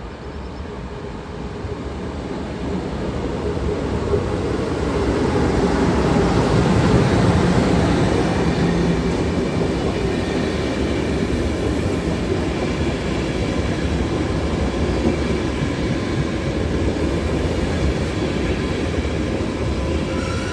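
Passenger train hauled by an EP09 electric locomotive running along the platform: the rolling noise of wheels on rails grows over the first few seconds, is loudest as the locomotive goes by about six seconds in, then continues steadily as the coaches pass.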